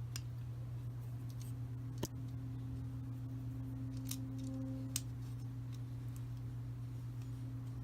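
A few light, irregular metallic clicks as a small lock nut and washer are fitted by hand onto the threaded shaft of a mini quartz clock movement, over a steady low hum.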